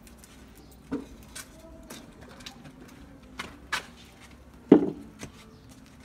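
Budgerigars giving scattered short chirps, with a louder, deeper knock or squawk about three-quarters of the way in.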